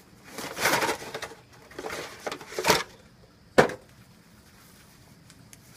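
Handling noise from a nylon shoulder holster and its packaging: a few bursts of rustling and crinkling in the first three seconds, then a single sharp click about three and a half seconds in.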